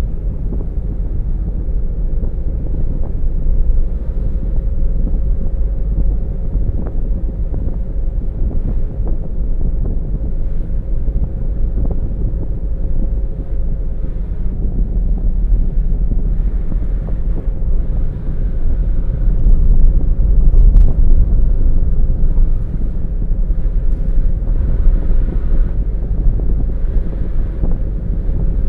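Car driving on a road: steady low rumble of engine and tyres, with wind buffeting the microphone and a faint steady hum.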